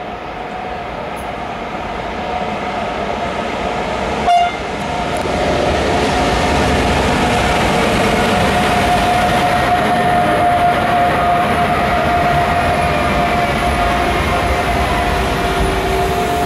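An NMBS/SNCB Class 18 electric locomotive and its passenger coaches arriving along the platform, growing louder as they come close. There is a brief sharp sound about four seconds in, then a steady high whistling tone over the rumble of the wheels.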